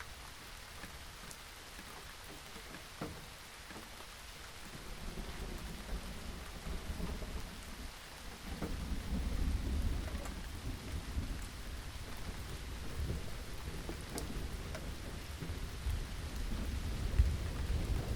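Steady rain falling, with scattered drop ticks. A low rumble of thunder builds about a third of the way in and grows louder just before halfway, then keeps rolling.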